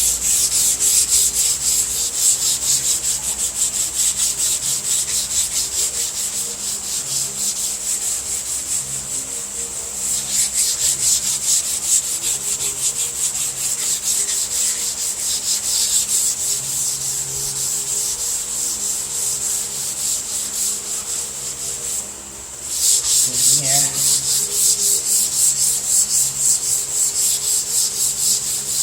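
Hand block sanding of primer with 220-grit paper on a very soft sanding block, in quick, even back-and-forth strokes with a brief pause about 22 seconds in. This is the finishing pass that takes out the 180-grit scratches on an already flat panel.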